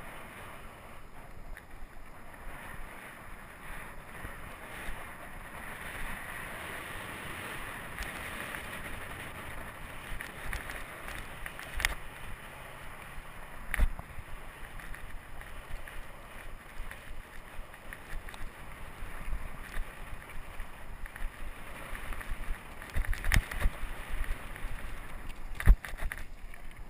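Wind rushing over an action camera's microphone while a mountain bike's knobby tyres roll along a dirt singletrack, with occasional sharp knocks and rattles of the bike over bumps that come thicker near the end.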